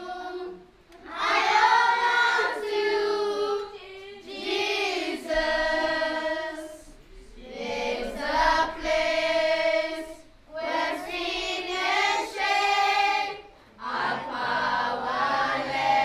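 A group of children's and women's voices singing together, unaccompanied. The song comes in phrases of two to three seconds with held notes and short breaks between them.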